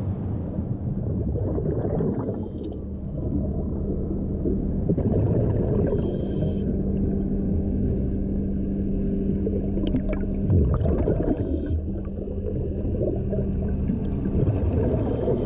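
Underwater sound beneath a ship's hull: a steady low machinery hum carried through the water, with bubbling from the divers' breathing now and then.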